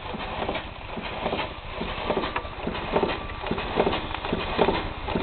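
Fowler 3-inch scale model traction engine running slowly on steam at about 40 psi, its exhaust beats and knocks coming unevenly a little under once a second over a steady hiss: the valve timing is out.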